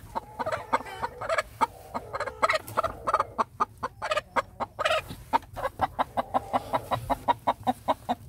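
Broody hen clucking repeatedly while a hand strokes her on the nest: irregular calls at first, settling into a fast, even run of about four short clucks a second from about halfway through. It is the sound of a hen set on brooding and unwilling to leave the nest.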